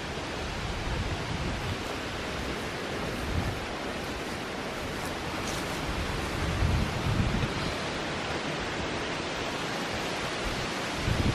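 Steady outdoor rushing noise, with low buffets of wind on the microphone, strongest a little past the middle and again near the end.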